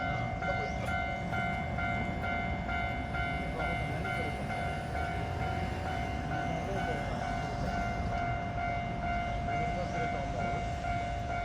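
Japanese railway level-crossing warning bell ringing in rapid, evenly spaced dings, over a steady low rumble of rail traffic.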